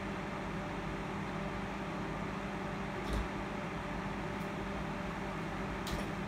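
Small electric desk fan running with a steady whir and hum, and two light clicks, one about halfway and one near the end.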